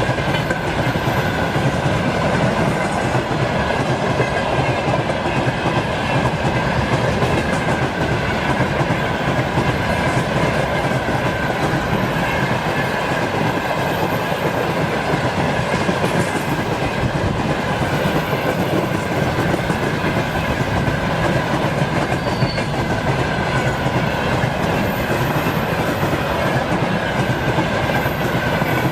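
A train's wagons rolling past on the track, a continuous clatter of wheels over the rails with a steady high ringing tone held over it.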